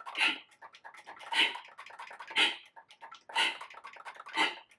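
Concert flute played with breath tones: breathy, pitchless puffs of air noise, about one a second, with near quiet between them.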